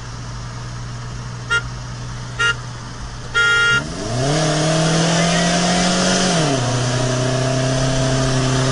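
Two short horn toots and a longer third one over an idling minivan engine, then the engine revs up under full-throttle acceleration from a launch. About six and a half seconds in, the revs drop with an automatic upshift, and the engine pulls on in the next gear.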